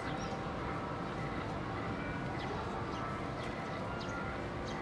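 Busy shopping-mall crowd ambience: many footsteps clicking on a hard floor over an indistinct murmur of voices.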